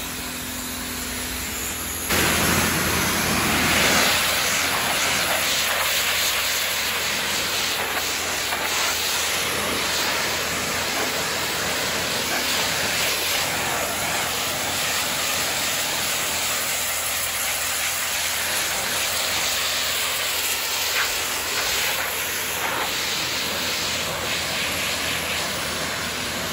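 Pressure washer jet hissing steadily as it blasts plaster off aluminum castings on concrete, starting up to full spray about two seconds in, over the steady low hum of the washer running.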